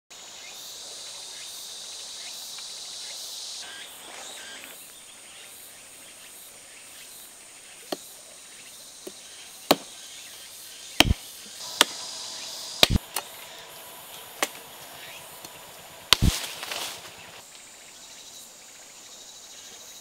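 Insects buzzing steadily, then a series of sharp chopping strikes, about eight over eight seconds, from a blade cutting a small branch off a tree, with a short rustle after the last strike.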